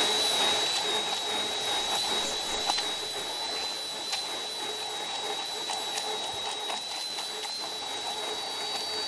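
Hand-held immersion blender running in a tall beaker, puréeing roasted eggplant, garlic and tahini into a thick paste. The motor keeps a steady high whine, and the sound swells louder and falls back several times, about two seconds in, near the middle and near the end, as the blade works through the mixture.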